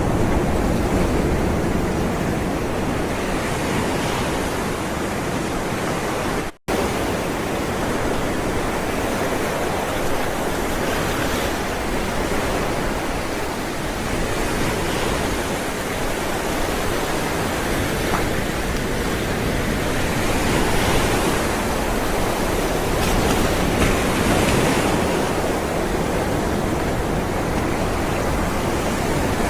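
Ocean waves rolling in, a continuous surf wash that swells every few seconds. About six and a half seconds in, the sound cuts out briefly to silence.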